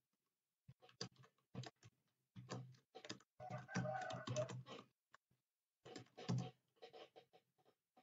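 Computer keyboard being typed on fast: rapid runs of keystroke clicks, dense for a couple of seconds, a short pause, then another run.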